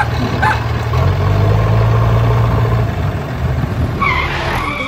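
Tractor engine running steadily with a low hum. Near the end a higher pitched, wavering sound comes in over it.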